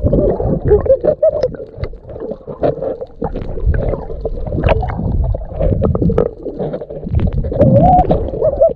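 Underwater sound from a submerged camera: muffled rumbling and gurgling of water, broken by many short sharp clicks and knocks.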